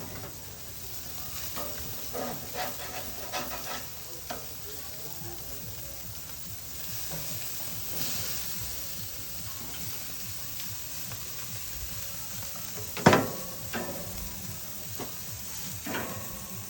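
Copper River sockeye salmon fillets sizzling on a hot grill grate, with light knocks and scrapes of a utensil a couple of seconds in. About 13 seconds in comes one loud, sharp knock.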